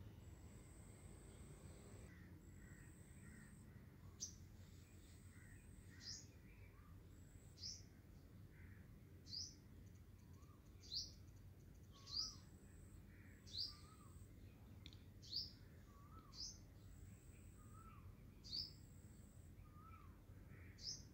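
A bird calling over and over, faint short high chirps that sweep downward, about one every second and a half, starting a few seconds in.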